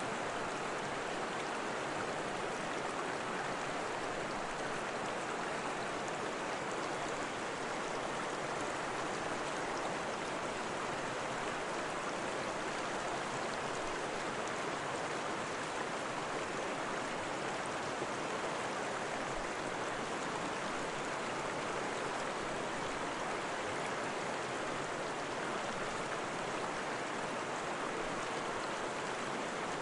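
Steady rushing of running water with no breaks or changes, the sound of a stream or waterfall.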